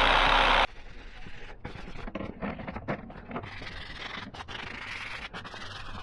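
Dual-action (random orbital) sander running loud and steady, cut off abruptly under a second in. After that, a sanding sponge is rubbed by hand over a flat metal case panel in irregular scratchy strokes.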